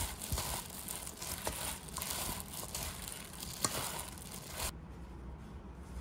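A hand in a disposable plastic glove tossing seasoned cucumber strips in a stainless steel bowl: crinkling of the plastic glove and wet squishing of the vegetables, with a few sharp clicks. It cuts off abruptly about five seconds in.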